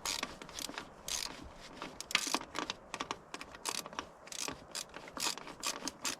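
Hand ratchet clicking in quick, irregular runs as a starter mounting bolt is backed out.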